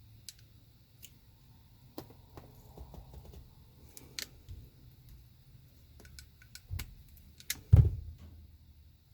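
Small clicks and light rattles of a wire connector and a hand crimping tool being handled while a wire connection is made up, with a louder low thump near the end.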